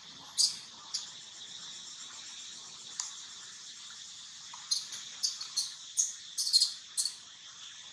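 Steady high drone of insects, with short sharp bird chirps: a few spaced ones early, then a quick run of about seven in the last three seconds.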